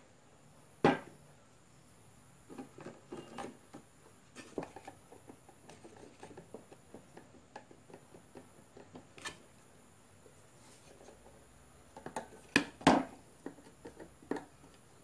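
Scattered clicks and knocks of a plastic blower housing and its impeller being handled and set down on a wooden workbench. The loudest knock comes about a second in, and a pair of sharp knocks comes near the end.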